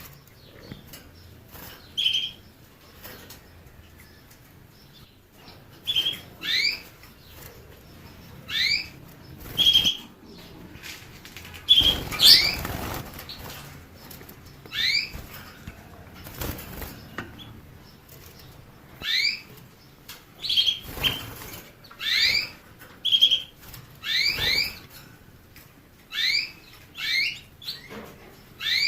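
Canary giving repeated short, rising chirps every second or two, mixed with brief steady whistled notes, with a louder rustling burst of noise about twelve seconds in.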